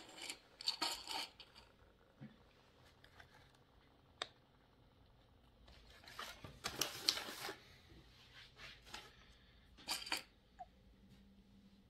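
Small plastic Lego pieces being handled and pressed together: scattered light clicks and rattles, with a busier stretch of clicking and rustling in the middle and a sharp click about four seconds in.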